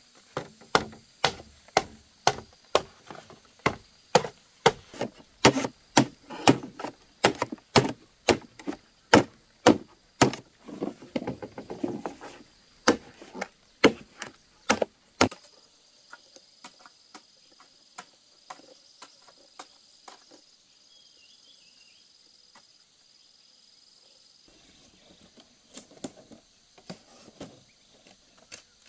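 A machete chopping into a green bamboo pole: sharp strikes about two a second for some fifteen seconds, then stopping. Softer knocks and rustling of split bamboo strips follow near the end, over a steady high insect drone.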